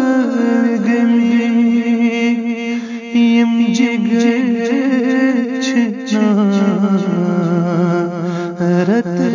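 A man singing a slow devotional supplication (dua) in Kashmiri, drawing out long held notes with wavering ornaments.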